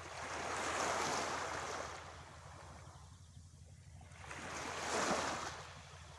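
Sea waves breaking and washing in, two surges about four seconds apart, each swelling and then fading, over a steady low rumble.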